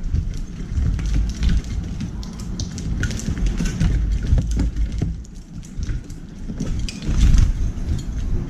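Eurasian tree sparrows pecking and scrabbling at sunflower seeds in a metal tray: many quick, sharp clicks and taps, irregularly spaced, over a steady low rumble.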